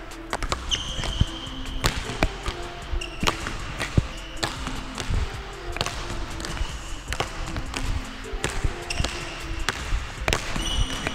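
Basketballs bouncing on a hard court, many sharp irregular thuds from dribbling and shots, over background music.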